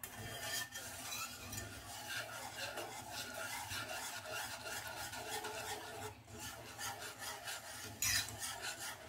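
Metal wire whisk scraping and swishing around a pan of milky white sauce in quick repeated strokes, stirred without stopping so that no lumps form as the sauce thickens.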